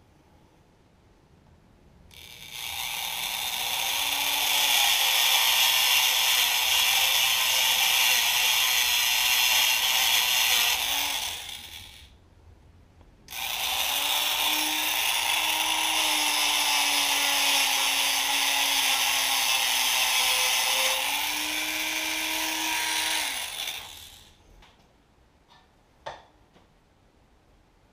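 Dremel rotary tool grinding into the metal of a motorcycle kickstand mount in two runs of about ten seconds each. The motor whine climbs as it spins up and drops as it stops. A single light knock comes near the end.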